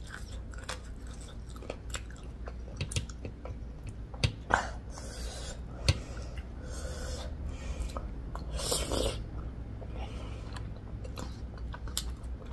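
A person chewing and biting food close to the microphone, with wet mouth clicks and smacks. Two short, louder hissing spells come about five and nine seconds in, the second one the louder.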